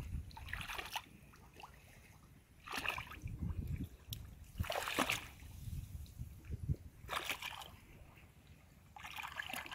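Shallow water splashing and sloshing as a person wades through a flooded rice paddy and works a bamboo fish trap in it, in irregular bursts every couple of seconds.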